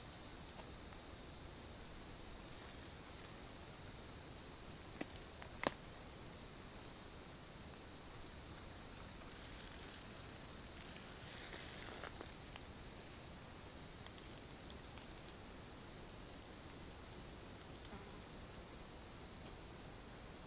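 Steady high-pitched insect chorus that carries on without a break. Two short clicks come a little after five seconds in.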